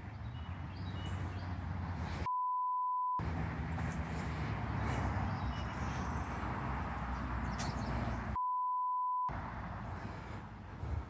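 Two censor bleeps, each a steady beep lasting about a second, the first a couple of seconds in and the second about six seconds later, over a steady outdoor background hiss.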